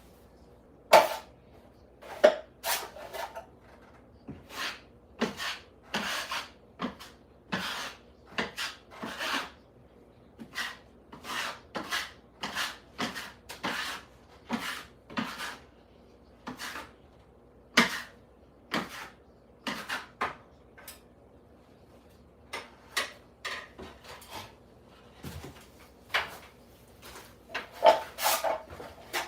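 An irregular series of short scraping strokes, about one or two a second, from a hand tool rubbing across a hard surface, with a few sharper, louder strokes.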